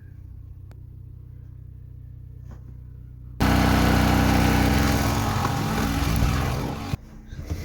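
An engine running: a steady low hum, then about three and a half seconds in a much louder engine sound starts abruptly and runs for about three and a half seconds before cutting off suddenly.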